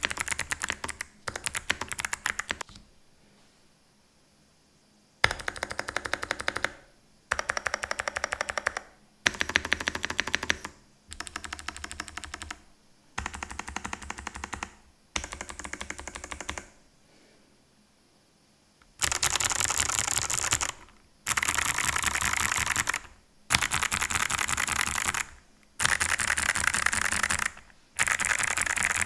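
Ajazz AC100 mechanical keyboard with spring-lubed Kailh Box White clicky switches and PE foam and polyfill mods, typed on fast in bursts of rapid clicks with short pauses between them. The bursts get louder and brighter about two-thirds of the way through.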